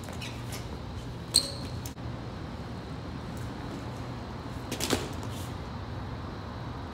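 Sharp metallic clinks from a BMX bike being ridden: one loud clink with a brief high ring about a second and a half in, and a quick rattle of clicks near five seconds, over a steady low hum.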